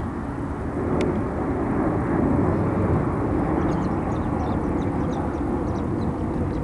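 Boeing 737 jet engines giving a steady rumble as the airliner touches down and rolls out on the runway, growing a little louder about two seconds in.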